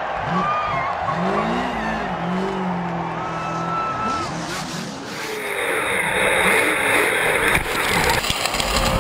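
Pickup truck's engine revving hard during a ramp jump, its pitch rising and falling repeatedly.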